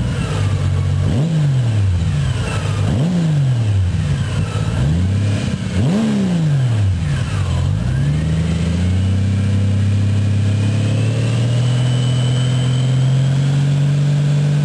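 Honda GL1800 Gold Wing's flat-six engine breathing through AlleyKat aftermarket exhausts, revved in a series of quick blips, then held at a steady raised speed that creeps slowly higher in the second half.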